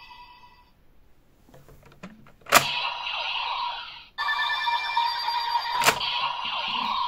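DX Gotchard Driver toy belt: a ringing electronic tone fades out, then two sharp plastic clicks about three seconds apart, each followed by the belt's electronic sound effects with a ringing tone.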